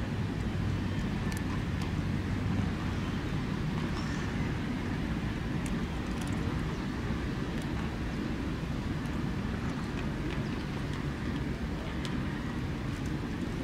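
Steady low outdoor background rumble, with a faint hum in the first couple of seconds and a few faint ticks.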